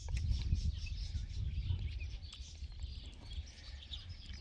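Small birds chirping in short scattered calls over a steady low rumble of wind on the microphone.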